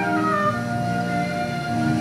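Instrumental background music: a melody of long held notes over sustained chords.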